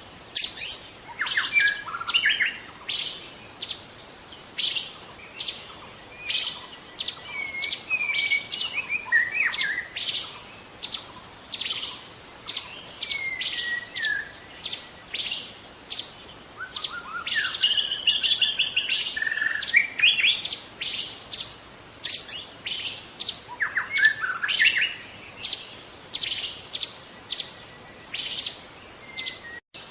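White-rumped shama singing: a steady run of sharp, high chip notes, more than one a second, broken every few seconds by short rich whistled phrases that slide up and down.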